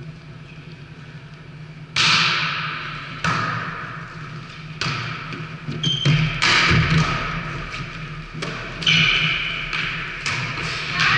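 A volleyball being struck during a rally: a series of sharp slaps of hands and arms on the ball, each ringing on in the hall's echo.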